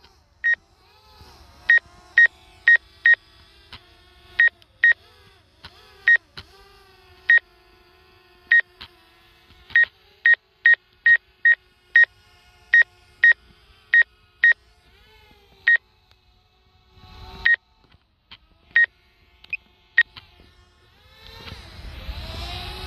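Short electronic alert beeps from a DJI drone controller, all at one high pitch. There are about thirty of them, spaced irregularly, sometimes one or two a second. Near the end a steady rushing noise comes back in.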